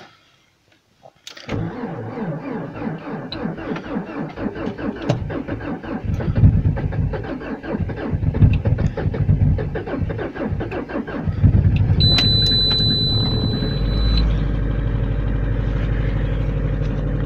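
Lada Vesta's petrol engine being cold-started at about −38 °C. After a second of quiet the starter cranks it in laboured, even pulses for about ten seconds, then it catches and settles into a steady idle. A high steady beep sounds for about two seconds as it fires.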